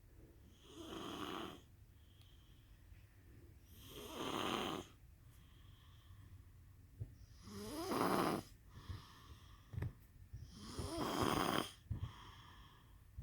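A sleeping child snoring: four snores about three seconds apart, the last two rising in pitch.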